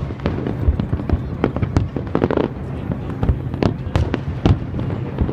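Fireworks display: a rapid run of sharp bangs and cracks from bursting shells, several a second, over a continuous low rumble.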